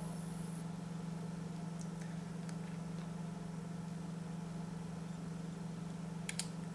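A steady low hum, with a few faint clicks near the end.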